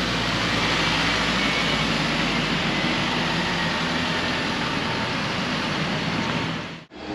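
Steady street traffic noise, a wash of passing cars and a truck, which cuts out abruptly for a moment near the end.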